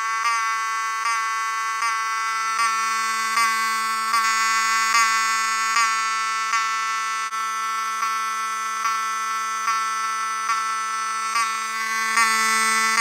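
Cerberus Pyrotronics HSD-24 fire alarm horn, a rebranded Wheelock 7002T, sounding a loud continuous buzzing tone with a short tick in it about every 0.8 seconds. It sounds not the healthiest, even at the best setting of its adjustment screws.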